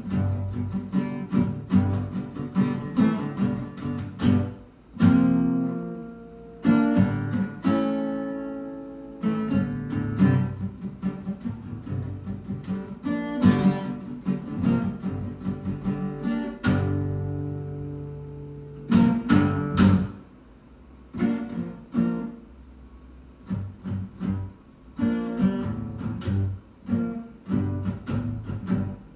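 Acoustic guitar being played, a mix of strummed chords and picked notes; some chords are left ringing for a second or two, others are cut off sharply.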